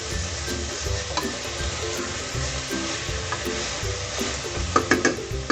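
Eggplant and hyacinth beans sizzling in oil with the spice masala, stirred with a spoon in the pan; a few sharp clicks of the spoon against the pan near the end.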